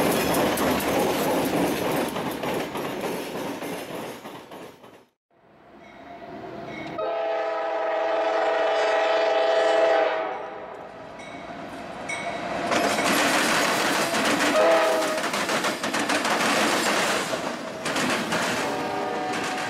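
A CSX diesel locomotive rumbles past at close range, its engine and wheels fading out after about five seconds. Then a Norfolk Southern freight locomotive sounds its multi-note horn in a long blast of about three seconds, followed by shorter blasts. Double-stack container cars roll past with loud rail noise and wheel clatter.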